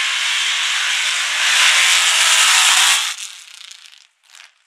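Mud truck run hard through a dirt pit: a loud rushing noise of the engine and spinning tyres throwing dirt, with a faint engine tone underneath. It cuts off abruptly about three seconds in, followed by two short bursts.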